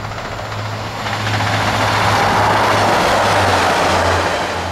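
Pacer diesel multiple unit running close past a station platform: the rush of wheels on rail builds from about a second in, peaks, and fades near the end, over a low steady engine drone.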